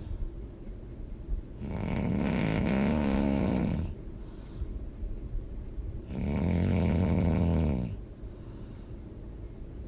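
A person snoring loudly: two long snores, each about two seconds, about four seconds apart, with quieter stretches between.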